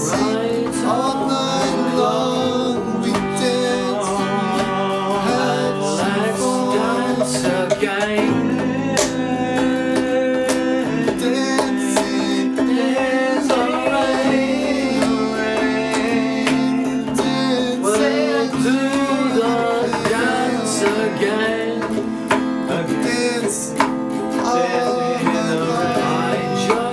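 Music: a guitar-led instrumental passage of a song, with strummed or plucked guitar chords under a gliding melody line.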